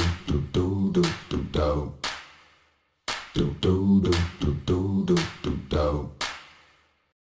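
Unaccompanied vocal jingle: a short, rhythmic sung phrase of percussive syllables with no instruments, ending about a third of the way in and repeated once in full, then dying away shortly before the end.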